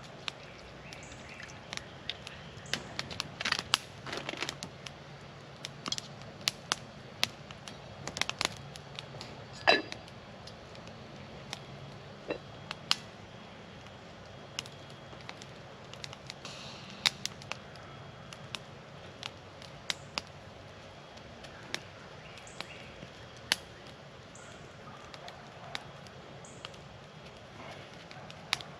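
Wood campfire crackling, with irregular sharp pops scattered through it, the loudest about ten seconds in.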